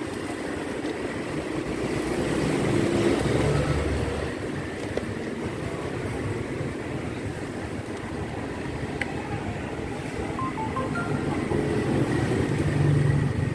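Low rumble of passing road traffic, swelling about two to four seconds in and again near the end.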